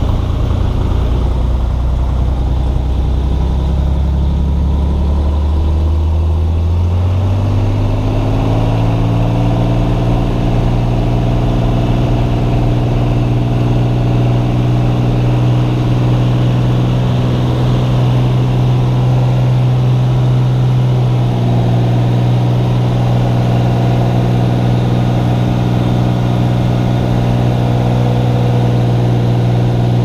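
Cessna 182S's six-cylinder Lycoming IO-540 engine and propeller, heard inside the cockpit. It runs at low power at first. About six seconds in, its pitch rises over several seconds as the throttle is pushed up to takeoff power. It then holds a steady full-power drone through the takeoff roll and climb.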